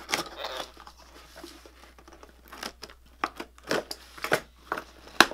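A cardboard shipping box being opened by hand: packing tape and flaps pulled and torn back, with irregular crinkling, scraping and clicking, and one sharp snap just before the end.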